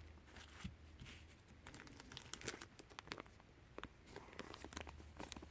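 Faint crinkling and small clicks of plastic packaging being handled as a coin is taken out.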